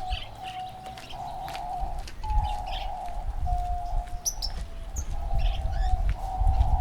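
A bird calling in a run of held mid-pitched notes, some clear and some buzzy, each about half a second to a second long, with short higher chirps from small birds mixed in. A low rumble runs underneath.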